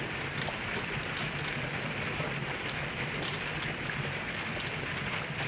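354-plate HHO electrolysis generator running flat out at about 57 amps and 7 kW, giving a steady fizzing hiss with a low hum underneath and a scattering of short, sharp ticks.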